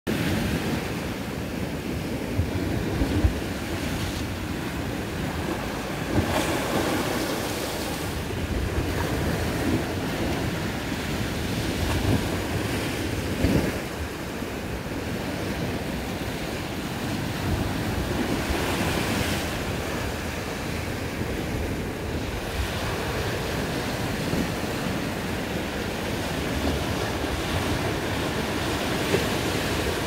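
Small sea waves breaking and washing up over a concrete slipway, the wash swelling and easing every few seconds. Wind buffets the microphone with a low rumble.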